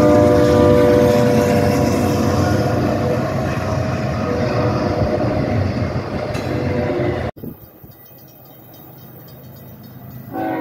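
A freight train's diesel locomotive air horn sounds a chord of several steady tones that fades out in the first second, leaving the steady rumble and wheel noise of loaded intermodal container cars rolling past. About seven seconds in, the sound cuts off abruptly to a quieter passing freight car, and another locomotive horn chord starts just at the end.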